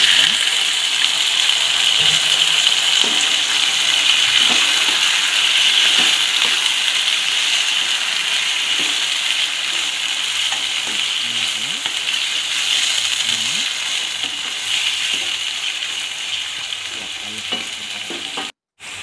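Wet, freshly washed raw chicken pieces hitting hot oil with onions and green chillies in a pan: a loud sizzle that starts suddenly and slowly dies down, with occasional light knocks of a wooden spatula stirring. The sound cuts out for a moment near the end.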